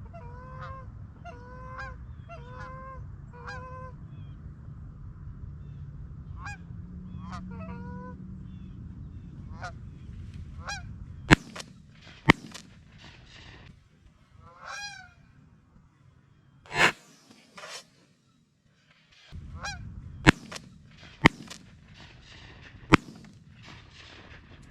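Geese honking: a quick run of evenly spaced honks at the start, then scattered honks. Several sharp, very loud cracks cut through, two about eleven seconds in and three more near the end.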